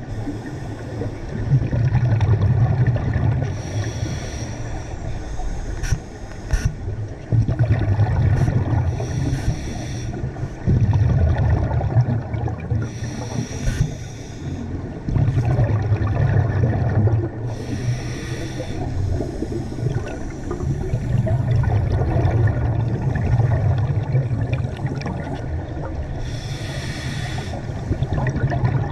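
Scuba diver breathing through a regulator underwater: short hissing inhales alternate with longer bubbling, rumbling exhales, a breath every few seconds.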